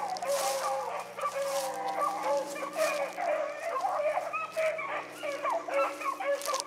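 Pack of rabbit hounds baying as they run a rabbit's trail, many voices overlapping in a continuous chorus.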